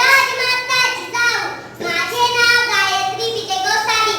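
A young girl singing, holding long high notes and sliding between pitches, with short breaks between phrases.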